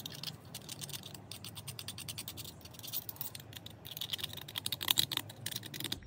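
A small metal pick scrapes and scratches rapidly inside the metal float bowl of a Kohler Courage 149cc carburetor, making a fast, uneven run of scratches and clicks as the bowl is cleaned out. The strokes come thicker and louder near the end.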